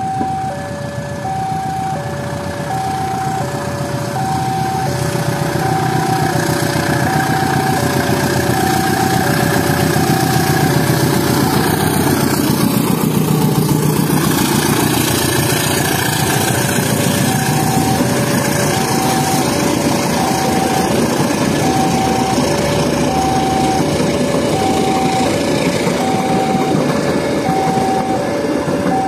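A diesel-electric locomotive hauling a passenger train passes close by: engine and rolling noise build to their loudest about halfway through, then the carriages run past steadily. Over it, a railway level-crossing warning alarm alternates between two tones about once a second.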